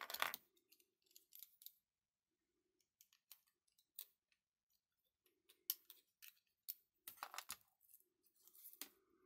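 Faint, scattered clicks and knocks of the 3D-printed plastic parts of a cordless electric screwdriver housing being handled and fitted together, with a small cluster of clicks at the start and more in the second half.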